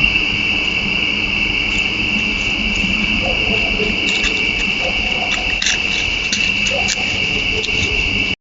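Steady, unbroken high-pitched insect trilling, like crickets, with a few short sharp chirps or clicks between about four and seven seconds in. The sound cuts off abruptly at the end.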